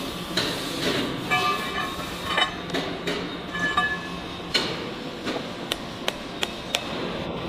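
Metal clinks and knocks from handling a large machined steel drill bit body while it is slung for lifting, some clinks ringing briefly, then a run of four or five sharp separate taps near the end, over a steady factory hum.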